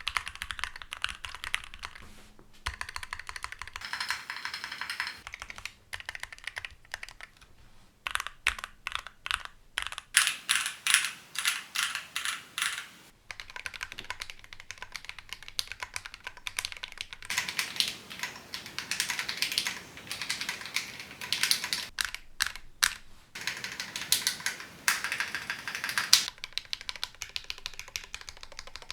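Typing on a Keychron Q10 mechanical keyboard, a full-aluminium, gasket-mounted Alice-layout board with hand-lubed Akko Cream Yellow switches: quick runs of high-pitched clacks broken by short pauses, with slower single keystrokes in places.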